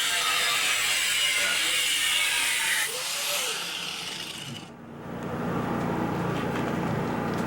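Power tool running steadily, then cutting off about three seconds in; a lower, steady hum follows near the end.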